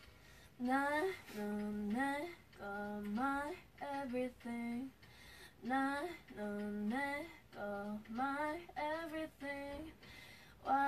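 A woman singing a cappella, without any backing: short phrases of a slow ballad melody that often slide up into the note, with brief rests between phrases.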